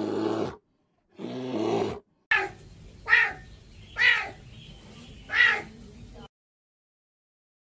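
A bear gives two low, drawn-out moaning calls, then a serval gives four short meow-like calls, each under half a second, before the sound cuts off to silence.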